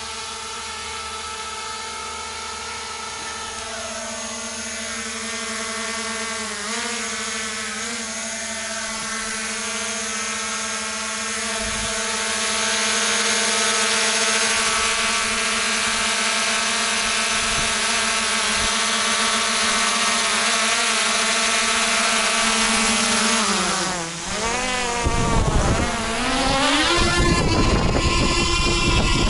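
Small folding quadcopter drone's propellers buzzing overhead, a steady many-toned whine that grows louder as it comes down close. About 24 seconds in the pitch dips and wavers, with rumbling and knocks, as the drone is brought in by hand with its motors still spinning.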